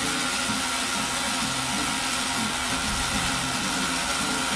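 Roto Tisserie wind-up clockwork rotisserie motor running steadily as it turns a chicken on the spit.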